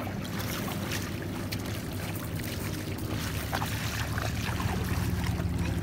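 A motorboat engine running with a steady low hum, under the splashing of small feet wading through shallow lake water.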